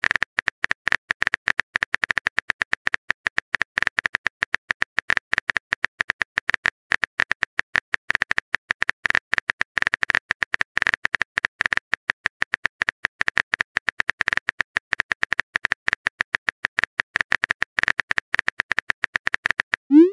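Phone-keyboard typing sound effect: a rapid, continuous run of light clicks, one for each letter typed into a chat message. Near the end it stops and a short rising swoosh marks the message being sent.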